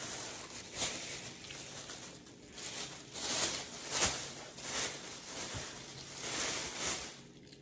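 Thin white plastic carrier bag rustling and crinkling as it is handled and pulled about, in uneven bursts that are loudest about three to four seconds in and again near the end.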